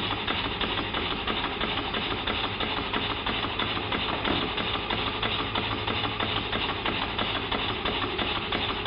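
Small single-cylinder model horizontal mill engine running steadily at speed, belt-driving a small model generator: a rapid, even beat from the engine with a steady low hum beneath.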